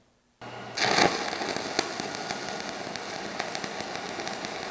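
Stick welding arc from a 3/32-inch 7018 electrode: a steady crackle full of sharp pops, starting abruptly about half a second in.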